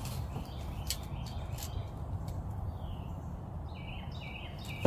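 A bird chirping in short repeated notes, about four a second in a run near the end, over a steady low rumble. A single sharp knock comes right at the end.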